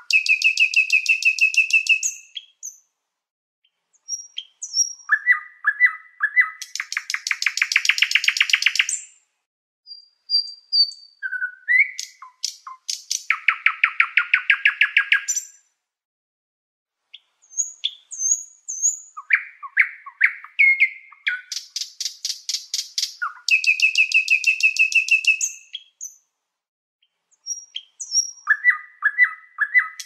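Domestic canary singing: phrases of rapid trilled notes, each lasting from about one to four seconds, with short pauses between them.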